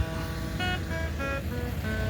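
Acoustic guitar music, single plucked notes in a slow melody, over a steady low rumble.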